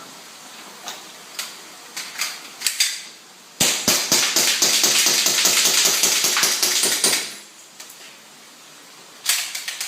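Airsoft gun firing a rapid automatic burst lasting about three and a half seconds, after a few scattered single clicks.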